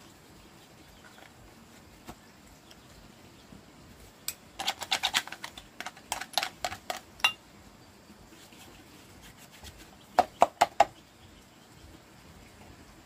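Sharp clicks and taps of hard objects, with a slight ring. A quick irregular run of a dozen or so clicks lasts about three seconds, then a few seconds later come four sharp taps in quick succession.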